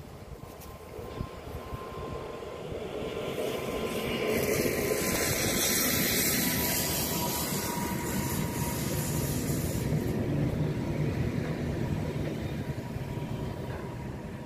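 Freight train passing close by, led by a ČD Cargo diesel locomotive. The sound builds as the locomotive approaches and peaks as it goes past about four to seven seconds in, then gives way to the steady low rumble of the container wagons' wheels on the rails, easing slightly near the end.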